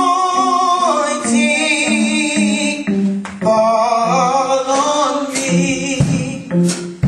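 Gospel vocal group of women singing together in harmony into microphones, holding long notes.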